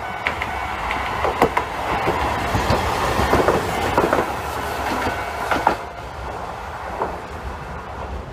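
Hankai Tramway streetcar passing close by, its wheels clicking and clattering on the rails over a steady rumble. The clatter is loudest between about one and six seconds in, then eases as the tram moves away.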